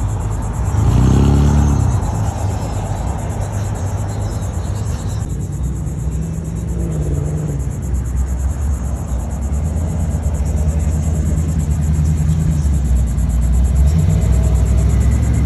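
Pickup truck engines rumbling as the trucks pull away and drive past, with a loud rev that rises in pitch about a second in and further engine notes as the next truck passes.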